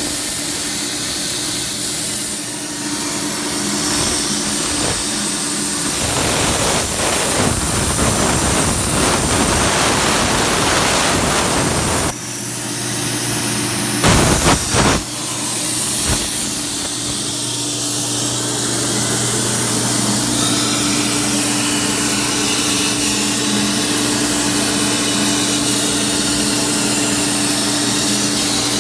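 CNC track cutting machine's torch cutting through 3/8-inch steel plate: a steady hiss over a constant electrical hum. A louder, rougher stretch of noise comes about a quarter of the way in, and a couple of short loud blasts about halfway through.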